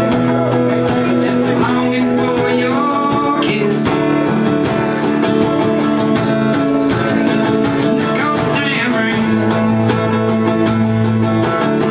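Live acoustic guitar strummed in a steady rhythm, with a man singing along at times.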